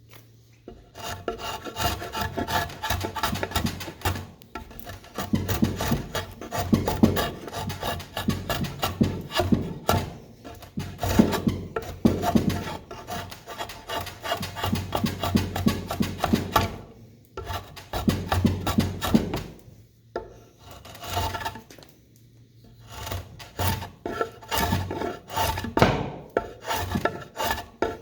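Rapid rasping hand-tool strokes, several a second, in runs of a few seconds broken by short pauses.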